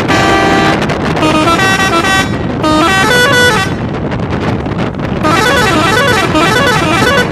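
A bus's musical multi-tone horn sounding a short tune in several blasts of stepped notes, then a fast warbling trill from about five seconds in, over the steady road and engine noise of the moving bus.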